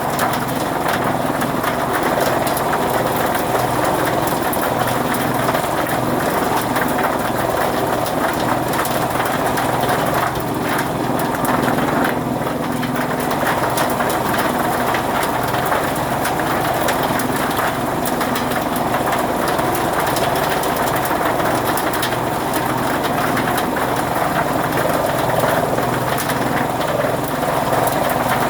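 Fodder chaff cutter running steadily with a continuous mechanical hum.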